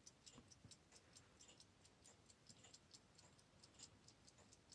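Near silence with faint, quick, regular ticking of a mechanical watch or clock, about five ticks a second.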